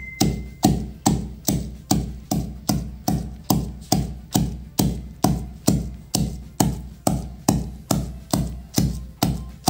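Steel pestle pounding giloy leaves in a steel mortar: a steady run of sharp metallic knocks, about two and a half a second, as the leaves are crushed into a paste.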